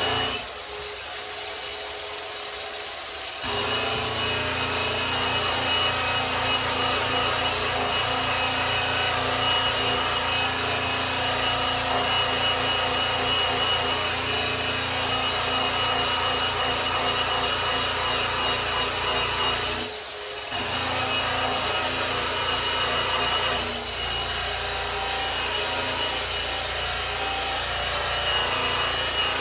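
Electric polisher running with its pad rubbing over a grand piano's finish, a steady machine whine with a friction hiss. The low hum drops away for about three seconds near the start and briefly again about two-thirds of the way through.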